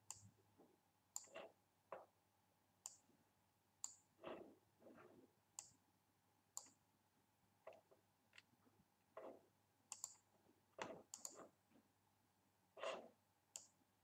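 Faint computer mouse clicks, about fifteen of them at irregular intervals, some sharp and high and some duller knocks.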